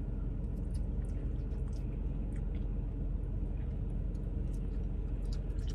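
Steady low hum inside a parked car's cabin, with faint chewing and small clicks from a man eating.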